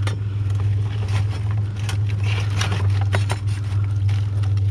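Scrap metal clinking and scraping in short irregular rattles as copper pieces are picked over and handled, over the steady low hum of an idling truck engine.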